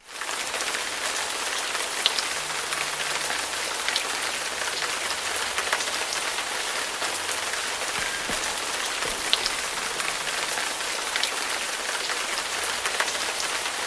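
Steady rain falling, with scattered sharper drips and drops ticking through it.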